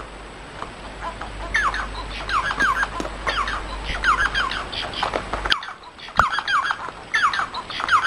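Small pet finches calling, a busy run of short, falling chirps from several birds overlapping one another. A low hum underneath cuts off about five and a half seconds in.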